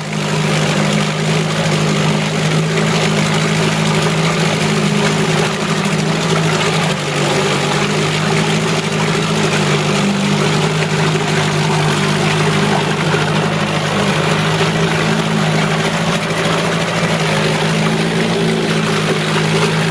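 A 1970s Yachtwin 4 hp two-stroke outboard motor running steadily in a water-filled bucket, without misfiring. It is running only on the fuel left in its carburetor, with the fuel line disconnected.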